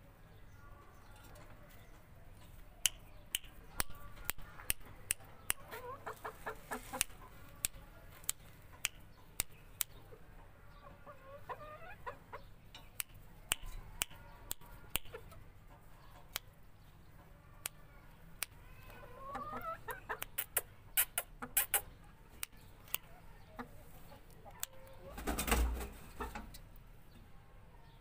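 Aseel gamefowl clucking softly in short calls, with many sharp clicks among them. A louder burst of noise comes about three-quarters of the way through.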